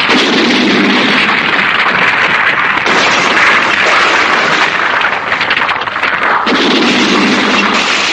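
Tokusatsu battle sound effect: a loud, continuous crackle of blasts, like a barrage of explosions and gunfire, shifting to a different blast effect about three seconds in and again near the end.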